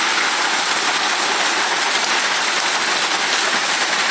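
Heavy rain pouring down as a loud, steady, even hiss.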